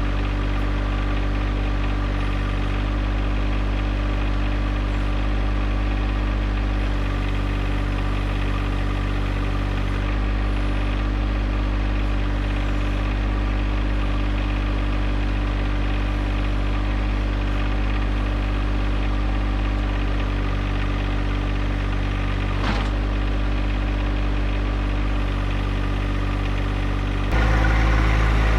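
John Deere 1025R compact tractor's three-cylinder diesel engine running steadily, as in backhoe work, with a single sharp knock about 23 seconds in. Near the end the engine note steps up and gets louder.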